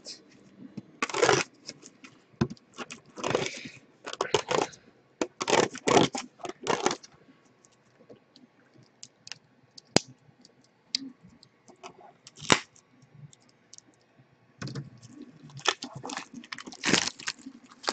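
Pokémon trading cards handled by hand, with irregular rustles and slides of card stock, then a metal collector's tin picked up and handled on the table, with a few sharp clicks in the second half.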